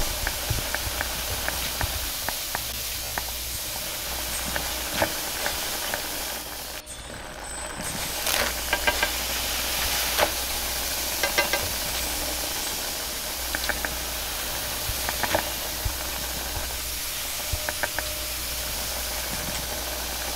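Steady hiss of a high-power gas wok burner, with a metal utensil scraping and knocking inside a carbon-steel wok as it is rinsed with water over the flame. The hot wok sizzles and steams.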